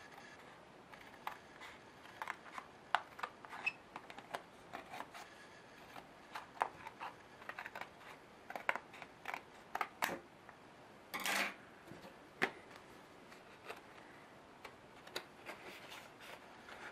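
Scissors snipping through the cardboard backing of a retail blister pack in many short, irregular crisp clicks, with the packaging crackling as it is handled. There is one longer crackle of the packaging about eleven seconds in.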